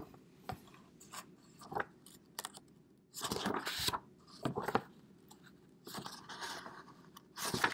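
Hardcover picture book being picked up, opened and its paper pages turned: rustling and scraping of pages with a few light taps.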